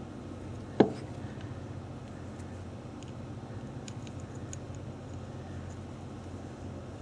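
Small metal tool parts handled on a workbench: one sharp metallic clink with a short ring about a second in, then a few faint light ticks, over a steady low hum.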